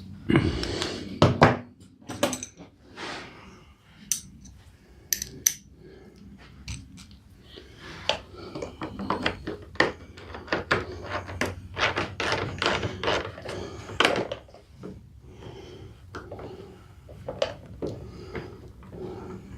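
Irregular knocks, clicks and scraping of a screwdriver and hands working at the hidden screws in the mower's plastic axle cover, with occasional light metallic clinks.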